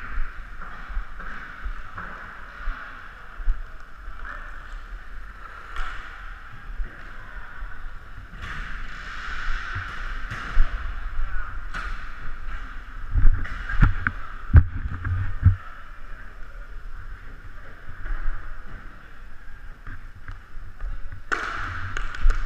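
Inline skate wheels rolling on a plastic sport-court rink, a steady hiss, with scattered clicks and a cluster of heavier knocks and thumps just past the middle from sticks, puck and skates.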